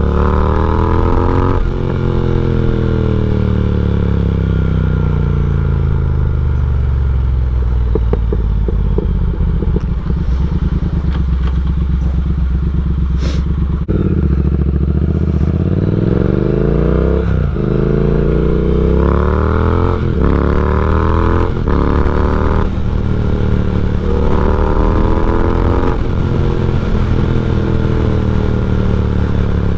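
Triumph Speed Twin's 1200 cc parallel-twin engine, de-catted and breathing through an X-pipe and slip-on silencers, revving up through the gears with quick upshifts and easing off between pulls. A run of rapid crackles as the throttle closes about eight seconds in.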